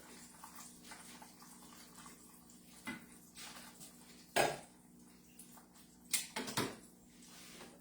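Kitchenware being handled: a few sharp clinks and knocks as dishes or a pan are moved and set down, the loudest about four and a half seconds in. A faint steady hum runs underneath.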